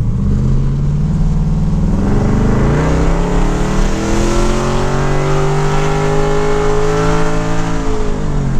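LS 5.3 V8 in a third-gen Firebird accelerating. Its pitch climbs steadily for several seconds and stays high with no upshift, then eases off near the end: the automatic transmission is not shifting.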